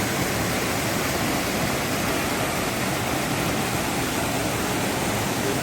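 Dudhsagar waterfall's water falling, a steady, even rush of noise.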